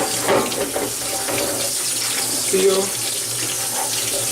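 Kitchen sink tap running, a steady rush of water into the sink.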